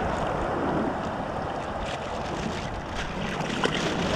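Wind buffeting the microphone over the steady wash of surf, with a few faint clicks near the end.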